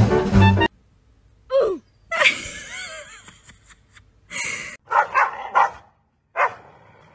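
Background music that cuts off under a second in, then scattered short animal sounds: a falling yelp, a noisy gasp-like stretch, and a few short dog barks in the second half.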